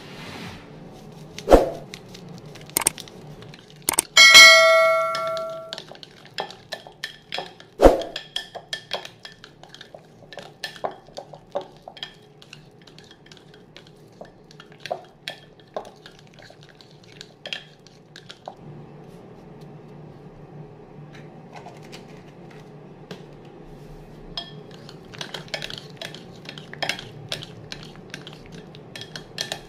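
A metal mixer beater is worked by hand through a creamed margarine and egg-yolk dough in a glass bowl, clinking and scraping against the glass. A few loud knocks come in the first eight seconds; the one about four seconds in sets the glass bowl ringing for over a second. A faint steady hum runs underneath.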